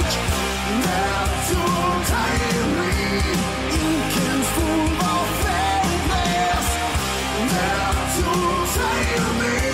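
Celtic rock music playing: a full band with drums and a wavering melodic lead line.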